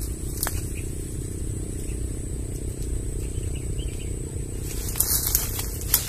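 Twigs and leaves rustling and crackling as bird-lime sticks are set by hand among tree branches, in brief bursts about half a second in and again around five seconds, over a steady low rumble and a thin high-pitched whine.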